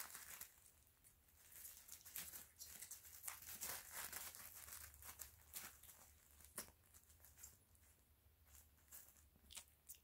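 Faint, irregular crinkling and rustling of plastic-backed puppy pads as Italian Greyhound puppies scramble and play on them, thinning to a few clicks near the end.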